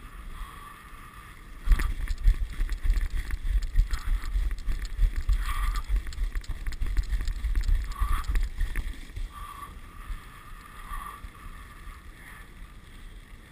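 Dog sled running along a snowy trail: runners hissing and scraping on the snow, the sled rattling over bumps with wind buffeting the microphone from about two seconds in, easing off after about nine seconds. A few short high squeaks sound over it.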